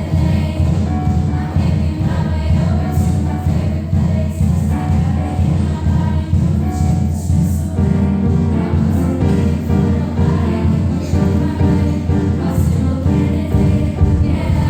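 A choir singing with instrumental backing over a heavy, steady bass.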